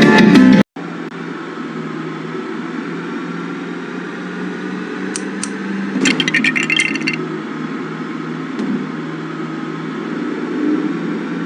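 Guitar music cuts off within the first second. A steady low mechanical hum follows, with a short burst of rapid high clicks about six seconds in.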